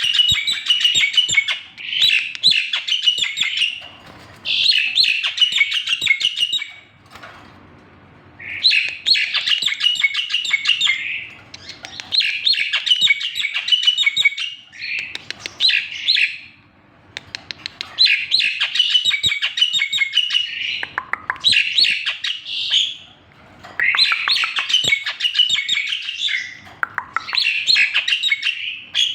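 Black-winged myna (jalak putih) singing: loud phrases of rapid, tightly packed notes, each a couple of seconds long, repeated over and over with short pauses between them.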